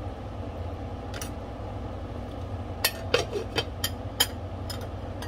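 Metal kitchenware clinking: a pot lid and cooking utensils giving a scatter of sharp clinks and taps, one about a second in and a quick run of them between about three and five seconds in, over a steady low hum.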